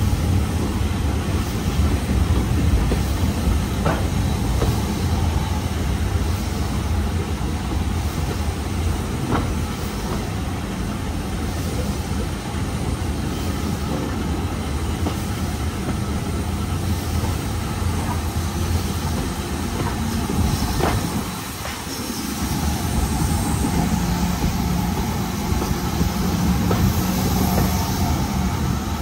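Steam-hauled passenger train running along the line: a steady rumble of the coaches on the rails, with occasional sharp clicks of wheels over rail joints.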